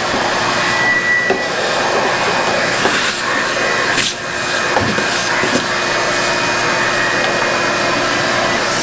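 Shop vacuum running steadily, its hose nozzle sucking sawdust out of a Delta drum sander, with a brief whistle about a second in and a few light knocks as the nozzle bumps the machine.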